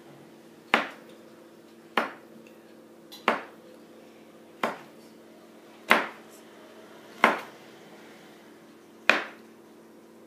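A kitchen knife slicing through a log of chilled cookie dough, its blade knocking sharply on the hard countertop at the end of each cut: seven taps, about one every second and a half. A faint steady hum runs underneath.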